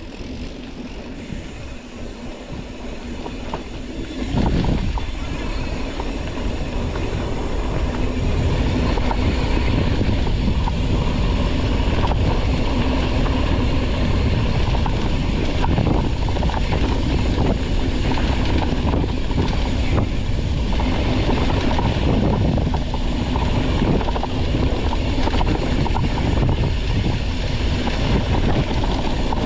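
Mountain bike descending a rough trail at speed: wind buffeting the on-bike microphone over the tyres and the bike rattling and knocking on the terrain. It gets louder about four seconds in as the speed builds.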